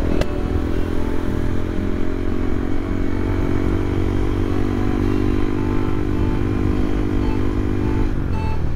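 Motorcycle engine running steadily in city traffic, a constant hum with road rumble that drops away a little before the end.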